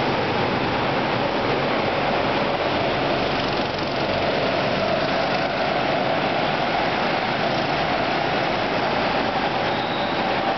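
Hire go-kart engines running on the track, a steady drone mixed with a wash of noise.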